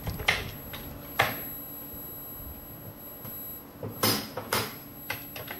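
Keystrokes on a Commodore 64 keyboard: a couple of single key clacks about a second apart, then a quicker cluster of keypresses near the end, over a faint steady hum.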